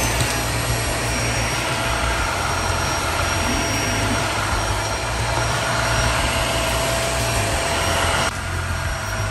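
Dreametech H11 Max cordless wet-dry vacuum running steadily: a motor whoosh with a thin high whine and a low hum. Near the end the whine cuts out suddenly and the sound becomes slightly quieter and duller.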